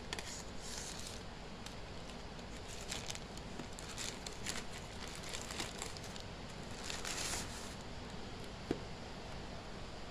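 Thin plastic bag crinkling and rustling in irregular bursts as it is cut with scissors and pulled open off a cardboard box, over a steady hiss, with one sharp click near the end.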